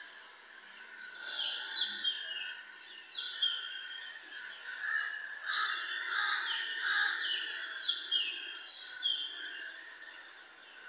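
Small birds chirping over and over: short, high, falling chirps.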